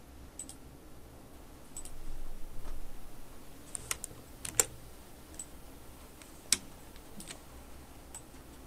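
Scattered clicks of a computer mouse, about ten at irregular intervals, two of them louder than the rest, as mask points are placed by hand.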